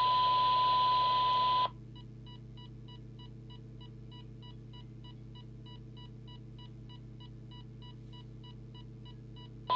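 A steady 1 kHz test tone with hiss from the Midland M5 CB radio's speaker cuts off suddenly about 1.7 seconds in as the squelch closes. Then come faint, rapid key beeps, about three or four a second, as the squelch setting is stepped up. Near the end the tone comes back abruptly as the setting wraps around to its lowest level and the squelch opens again.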